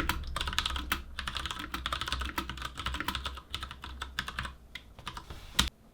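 Typing on a computer keyboard: a quick run of keystroke clicks that thins out in the second half and ends with a single keystroke just before the end.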